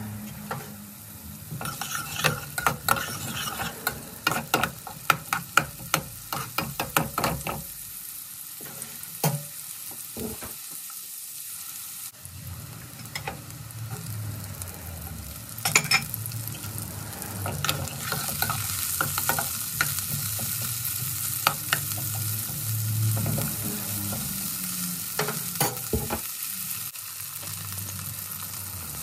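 Curry frying in a pan, sizzling steadily while a utensil stirs and knocks against the pan. There is a quick run of clicks and scrapes over the first several seconds, then mostly sizzle with an occasional knock.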